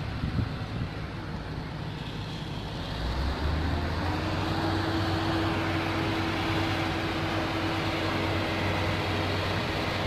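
A heavy engine comes in about three seconds in and then runs at a steady speed, a low drone with a steady higher hum over it. Wind buffets the microphone.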